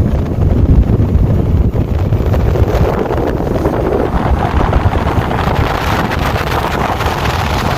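Wind buffeting the microphone over the rumble of a boat under way.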